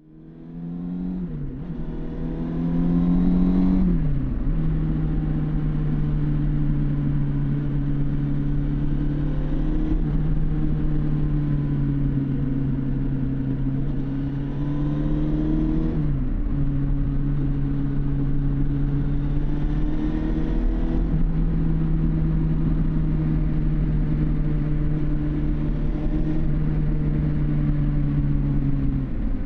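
1999 Suzuki GSX750 Inazuma's inline-four through its stock exhaust, fading in as it pulls away and revs up through two quick upshifts, then running at steady cruising revs with a brief dip and recovery about halfway through.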